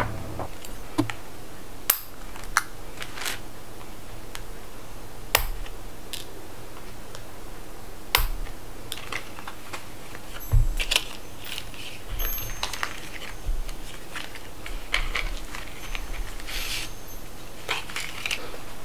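Handling of new clothes: fabric rustling, with scattered sharp clicks and crinkles from cardboard sock tags, plastic hooks and packaging, busier in the second half.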